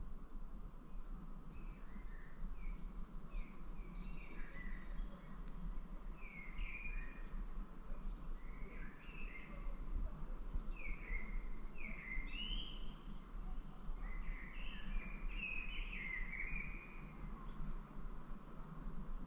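Small birds chirping, many short quick calls that slide in pitch, over a steady background hiss.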